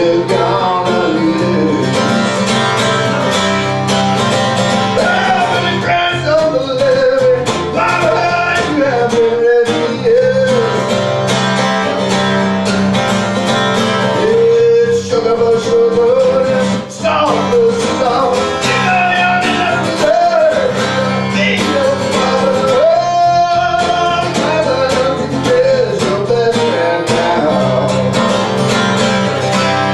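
Acoustic blues-folk instrumental break: plucked guitar accompaniment under a sliding, bending lead melody line.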